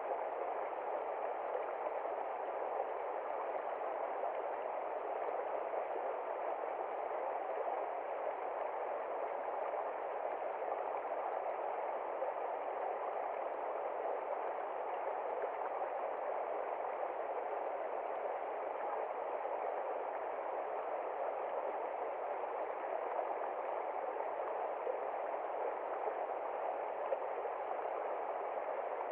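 Mountain stream flowing steadily over rocks, a constant rush of water with no breaks.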